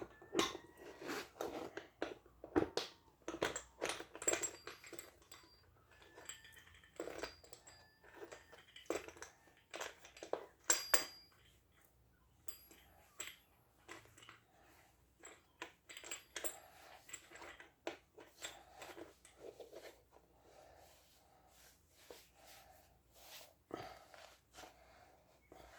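Parts of an electric fan being handled and fitted together during assembly: irregular clicks and knocks of hard pieces, some with a short ringing tone, thinning out in the second half.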